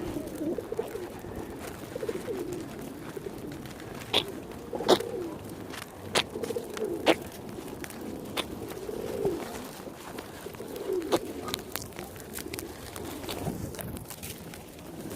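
Pigeons cooing in repeated low, warbling phrases, with several sharp clicks scattered through.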